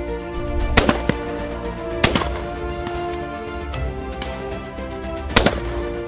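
Over-and-under 12-bore shotgun firing three loud shots, just under a second in, about two seconds in and near the end, with a fainter crack just after the first, over background music with steady held notes.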